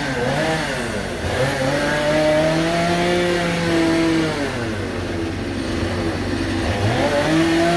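Two-stroke chainsaw carving wood, its engine revving up and down so the pitch rises and falls several times, dipping lowest around five to six seconds in.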